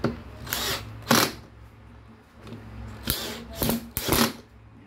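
Cordless drill driving wood screws into a wooden rifle stock in several short bursts.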